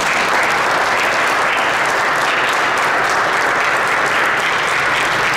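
Congregation applauding: steady clapping from many people.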